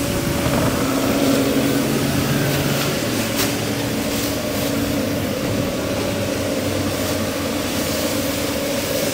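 Steady mechanical hum of a food truck's running equipment, with a few light clicks and knocks, about three and a half seconds in and near the end.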